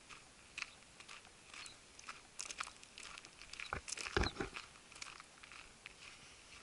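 Footsteps crunching on a gravel road in an uneven rhythm, with a louder cluster of knocks about four seconds in.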